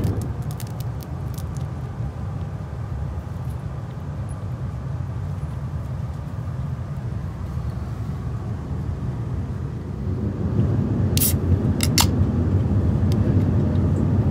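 Steady low rumble of a train, heard from inside the carriage, growing a little louder about ten seconds in, with a couple of short sharp clicks near the end.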